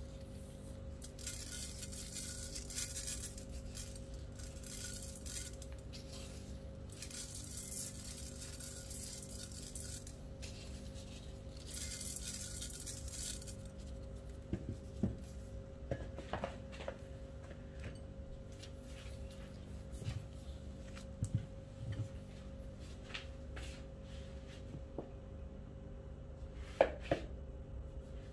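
Oil being spread over the inside of a metal cooking pot: three stretches of rubbing hiss, followed later by scattered light knocks and clinks of the pot and utensils, the sharpest near the end.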